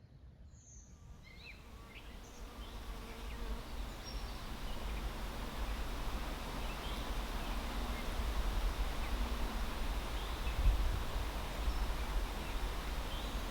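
Honey bees buzzing in flight, fading in over the first few seconds and then steady, over a low rumble.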